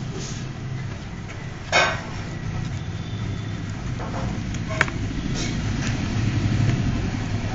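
Steady low background rumble, with a short scraping rustle about two seconds in and a sharp click near five seconds.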